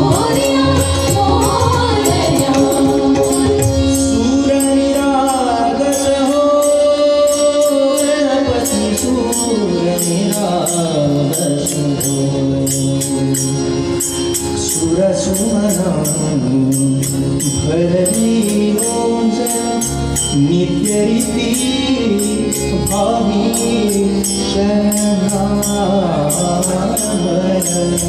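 Live Indian devotional music: a singer with harmonium and tabla accompaniment, melodic lines gliding over sustained notes, and a steady beat of bright jingly ticks.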